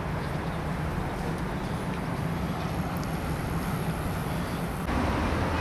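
Steady low rumble of city traffic, heard as outdoor background noise, which steps up and grows louder about five seconds in.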